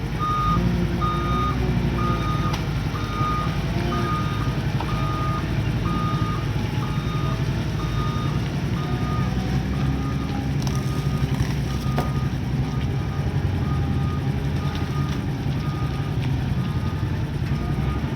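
Reversing alarm on a heavy diesel earthmoving machine, a single high beep repeating evenly a little faster than once a second, over the steady low running of its diesel engine.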